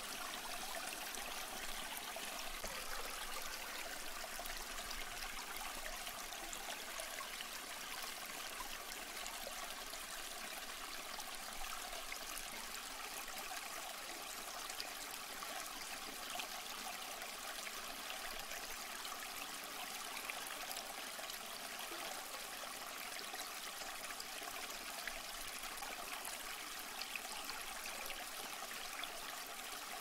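Steady running water, trickling evenly with no breaks.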